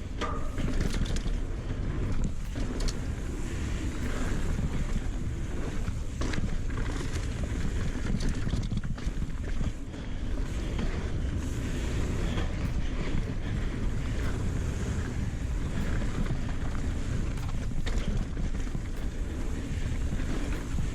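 Ibis Ripmo AF mountain bike riding a rough dirt trail: steady wind buffeting the action-camera microphone over tyre noise, with scattered clicks and knocks from the bike over bumps.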